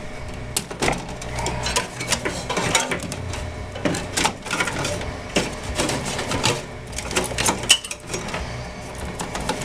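Irregular clicks, rattles and knocks of power-supply cables and plastic connectors being handled and pushed down into a desktop computer case.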